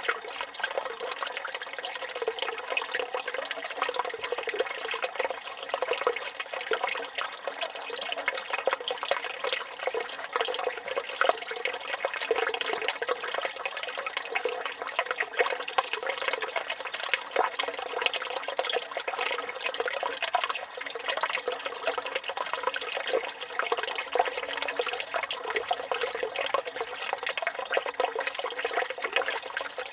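Turkish village fountain (çeşme) running: water pouring and splashing steadily without a break.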